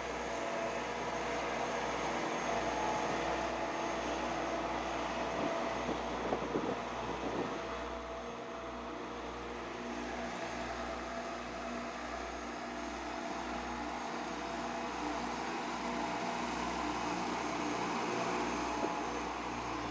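Cat CB-534D vibratory asphalt roller running steadily, its diesel engine droning over a deep bass hum.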